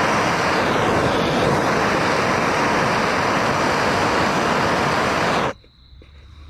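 Propane torch flame running with a steady loud hiss while heating aluminum for brazing, shut off suddenly about five and a half seconds in.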